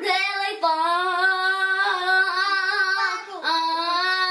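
A child singing loudly in long, drawn-out high notes, with a short break about half a second in and another near the end.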